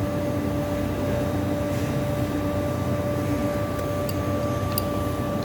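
Steady machine hum with a constant pitched drone, as from a running motor, with a couple of faint light ticks near the end.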